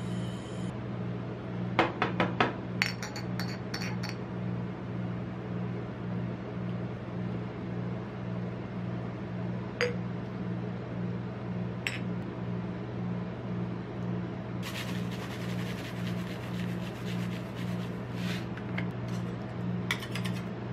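Metal spatulas knocking and clinking on the steel cold plate of a rolled-ice-cream pan, with a quick run of sharp ringing knocks about two seconds in and single taps later. Near the end comes a stretch of rapid light ticking and scraping. A steady low hum runs underneath.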